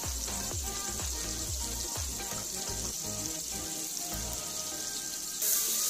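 Tomato masala with spice powders frying in hot oil in an iron karahi, a steady sizzle that grows louder near the end, under background music with a steady beat.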